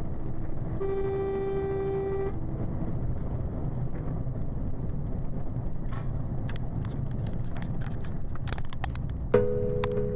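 Steady road and engine rumble heard from inside a vehicle's cab, with a vehicle horn sounding once for about a second and a half near the start. Later comes a run of irregular sharp clicks and knocks, and music starts just before the end.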